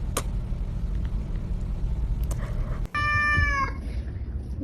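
A domestic cat meows once, a single short call about three seconds in, over a steady low rumble.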